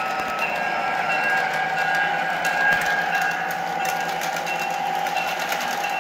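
MTH O-scale diesel locomotive running across a Lionel truss bridge with a train of covered hoppers: a steady motor-and-wheel hum, with a few steady tones over it and light clicking from the wheels on the track.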